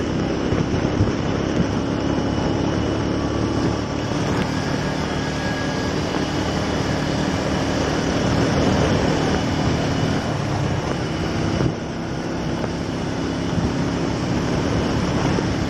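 Motorcycle engine running at a steady pace while riding, with wind rushing over the microphone.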